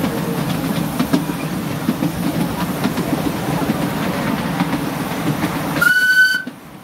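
Miniature ride-on steam railway train rolling along the track, its wheels rumbling and clattering over the rail joints, echoing inside a corrugated-steel tunnel. Near the end a short high-pitched tone sounds, and the rumble drops away suddenly as the train leaves the tunnel.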